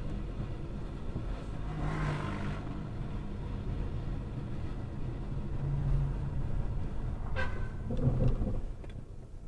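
A car's engine and tyre noise heard from inside the cabin while driving at moderate speed, a steady low rumble. There is a brief brighter rush about two seconds in, and a short sharp noise about seven and a half seconds in.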